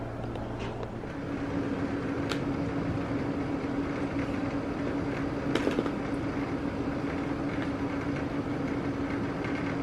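A steady machine hum, like a running household appliance or fan, with a few light clicks of small plastic toy figures being handled in a plastic tray.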